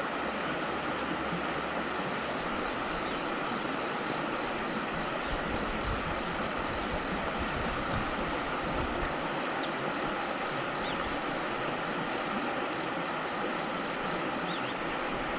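A mountain stream's running water, a steady rushing with no change.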